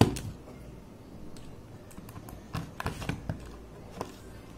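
Irregular light clicks and taps of connector wires being handled and plugged into plastic modular circuit-kit boards, with a sharper click right at the start.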